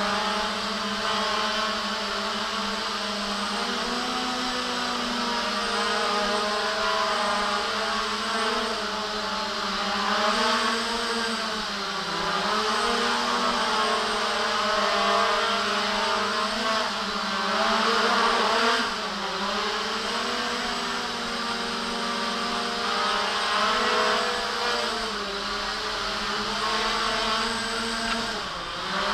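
JJRC X1 quadcopter's brushless motors and propellers whirring in flight, the pitch rising and falling as the throttle is worked. It is loudest about two-thirds of the way through.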